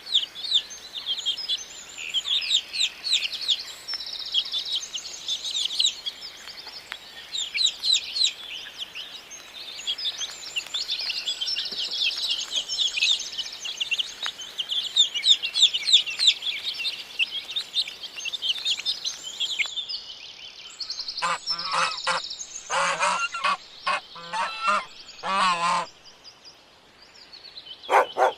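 Many small birds chirping rapidly and continuously, then a run of loud honking waterfowl calls in quick succession, and one more honk at the very end.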